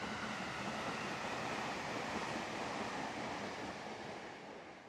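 JR 253-series limited-express electric train running past, a broad rushing noise of wheels on rail that fades over the last second as the train moves away.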